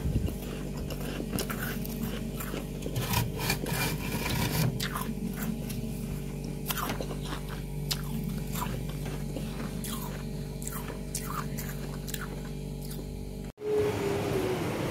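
Freezer frost crunching: a run of short, crisp crunches at an irregular pace over a steady low hum, which breaks off suddenly near the end.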